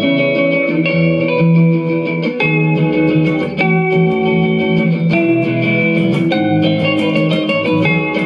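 Background instrumental music led by guitar, with plucked notes over a steady bass line.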